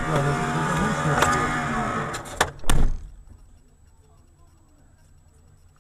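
Busy in-car sound with pitched tones and several sharp clicks, ending in one loud short thump about two and a half seconds in. After that the sound drops to near silence for the last three seconds.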